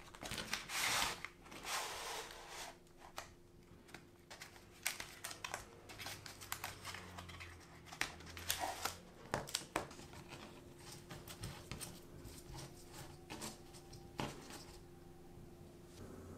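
Cardboard box of foil-wrapped Kiri cream cheese portions being opened and the portions handled and unwrapped: irregular crinkling, tearing and tapping, busiest in the first few seconds.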